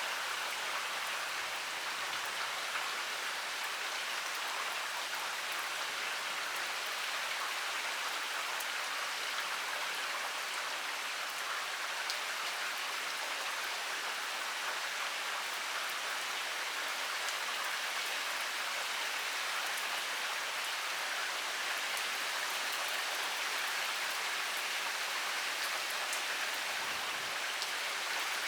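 Heavy rain falling steadily, an even hiss of pouring rain with the ticks of single drops landing scattered through it.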